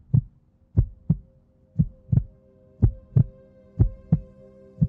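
A heartbeat sound effect: a double thump, lub-dub, about once a second, five beats in all. Beneath it runs a steady, sustained droning tone.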